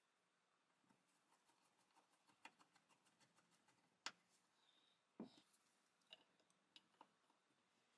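Faint handwork on a Black & Decker D520 drill's handle: a screwdriver turning a small screw gives a quick run of light ticks, then comes a sharp click and a knock as the handle cover is fitted on, followed by a few more light clicks.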